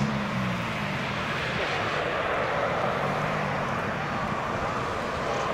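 Boeing 787-8 on final approach, its General Electric GEnx turbofans making a steady rushing jet roar that swells a little toward the end as the airliner comes closer.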